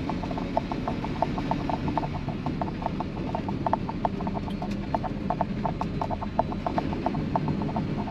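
Steady low engine and road drone inside a vehicle's cab at highway speed, with a light, irregular rattling tick over it, several clicks a second.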